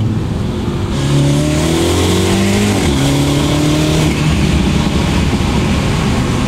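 Tuned Mini John Cooper Works' turbocharged four-cylinder, with aftermarket exhaust, downpipe and intake, under hard acceleration, heard from inside the cabin. The revs climb, drop at a gear change about three seconds in, and climb again. Loud intake and turbo noise at high revs follows.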